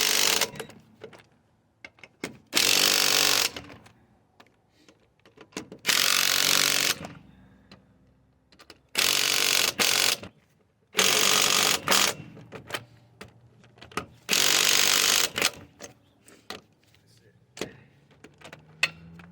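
Impact wrench running in six short bursts of about a second each, with small metallic clicks and clatter between them.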